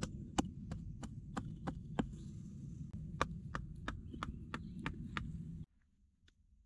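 A hatchet chopping into a small piece of wood laid on a log, quick steady strikes about three a second over a low steady rumble. The chopping stops suddenly near the end.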